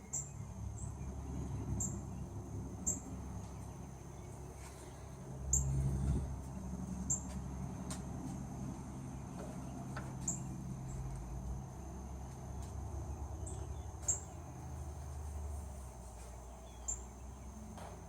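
Outdoor insect and bird background: a steady high insect whine with short, high chirps every second or so, over a low rumble that swells about five and a half seconds in.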